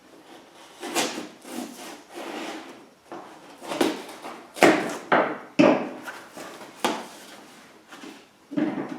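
Cardboard box and packaging being handled and pulled open: an irregular run of scrapes, rubs and knocks.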